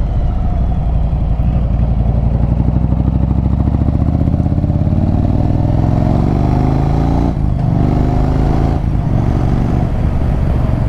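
Yamaha Virago 1100's air-cooled V-twin engine and exhaust pulling away at low revs with a pulsing beat. The revs then rise steadily, with two short breaks where the revs drop, about seven and nine seconds in, that sound like upshifts.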